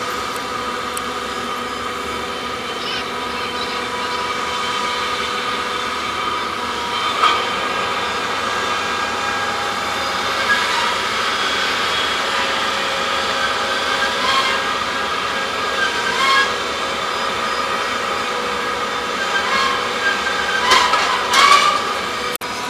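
Crane ship's machinery running with a steady mechanical drone, with occasional metallic clanks and short squeals while the boom works. The loudest squeals come twice near the end.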